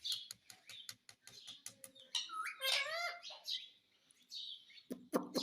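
Pet parrot making squeaky chirping calls that glide up and down, among a run of quick clicks, with a lower voice-like call near the end.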